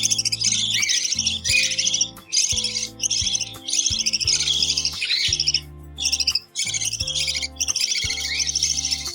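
Budgies chirping in dense, fast-pulsing bouts with brief pauses, typical of chicks begging at feeding time, over background music with steady low notes.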